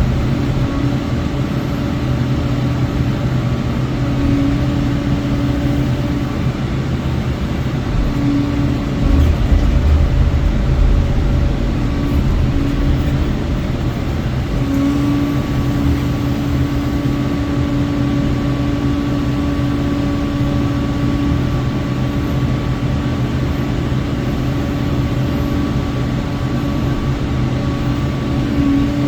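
Sany SY80U mini excavator working a Loftness Battle Ax mulcher head: a steady machine drone with a high whine that breaks off and returns a few times. A heavier low surge comes about nine to twelve seconds in.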